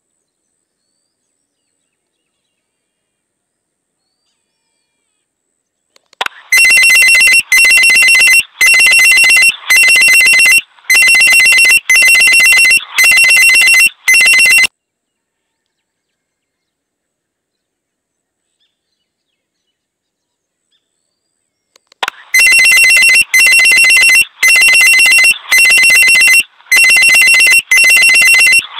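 Loud telephone-style electronic ringing sound effect, a fast-trilling ring repeated in pulses about a second apart. After about six seconds of silence, a run of about eight rings plays and stops. A second run starts again about 22 seconds in.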